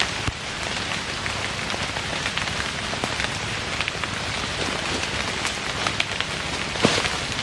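Heavy rain falling steadily, with many sharp close drop hits scattered through it and one louder hit near the end.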